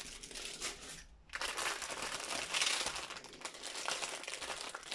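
Crinkling plastic as the film-covered diamond painting canvas is handled, with a short pause about a second in.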